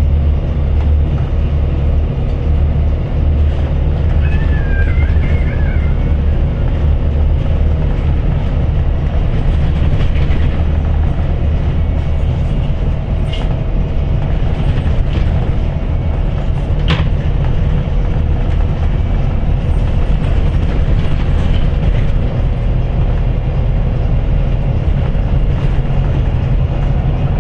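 Cabin noise of a moving city bus: the engine's steady low drone under road and tyre noise, with a few brief sharp clicks from the fittings.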